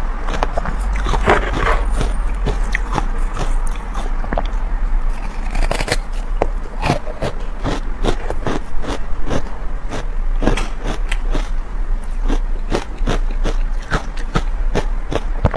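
Frozen matcha ice crunching close to a clip-on microphone: ice being chewed and wooden chopsticks scraping chunks off the frozen block, as a dense run of many sharp crunches and clicks.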